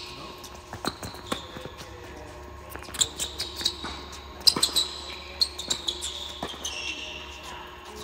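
Indoor tennis rally: sharp pops of rackets striking the ball and the ball bouncing on the hard court, several of them, the loudest about three and four and a half seconds in. High thin squeaks run through the middle of the rally, typical of players' shoes on the court surface.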